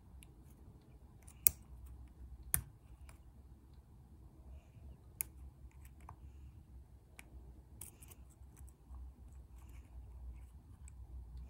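Lock pick and tension wrench working the pins of a lock: faint scratching and light clicks, with two sharper clicks about a second and a half and two and a half seconds in.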